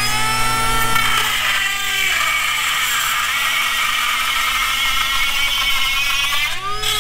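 Small handheld cordless power tool, most likely a rotary tool, spinning up to a high-pitched whine and running steadily at speed, then winding down about six and a half seconds in.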